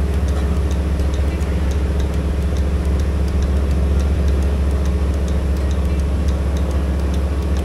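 A small ferry boat's engine running steadily under way, a loud low drone heard from on board, with a faint, regular high ticking over it.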